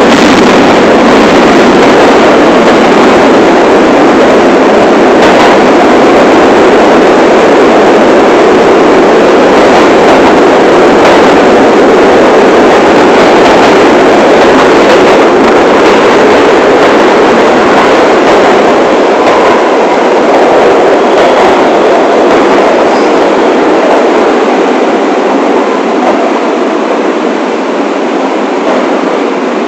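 A New York City subway train on the 1 line running steadily, heard from the front of the train: a loud, constant rumble of wheels on rail and traction motors, easing off slightly in the last few seconds.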